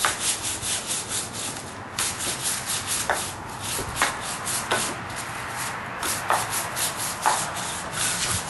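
A brush scrubbing rust off a blacksmith's vise fresh out of an electrolysis de-rusting bath, in quick back-and-forth scratchy strokes, several a second, without a break.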